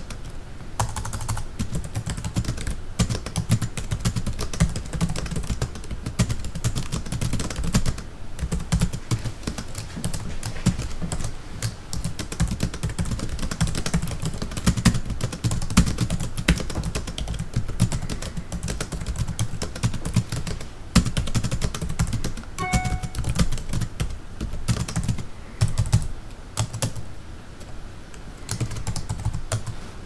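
Typing on a computer keyboard: a fast, continuous run of key clicks with a few short pauses.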